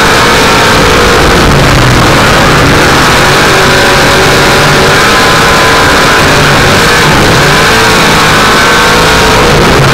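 Off-road vehicle's engine running hard and revving up and down, very loud and distorted at the microphone.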